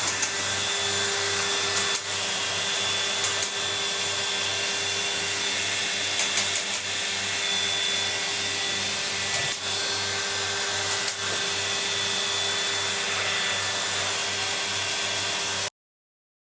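A machine running steadily, with a low pulse about three times a second and a few sharp clicks. It cuts off abruptly near the end.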